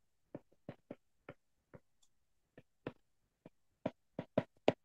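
Stylus tapping and clicking on a tablet while handwriting: a string of light, irregular clicks that come faster and a little louder near the end.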